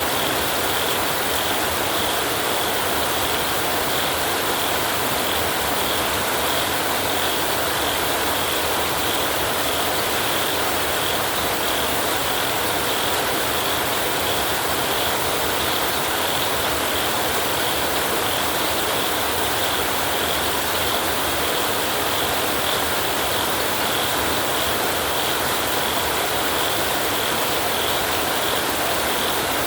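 Heavy rain drumming steadily on a tin roof, an even unbroken patter at a constant level.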